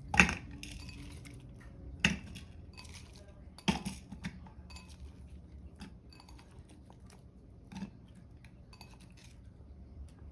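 Onion pieces being dropped into a blender jar: three sharp knocks in the first four seconds, then lighter scattered taps and clicks, with the blender motor not running.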